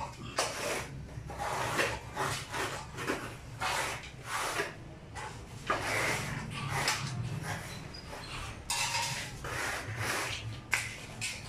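A hand plastering tool scraping and rubbing over cement mortar on concrete stair steps, in repeated irregular strokes.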